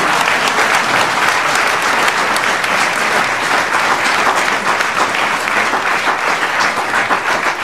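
Many people applauding: dense, even clapping at a steady level, in response to a recited poem.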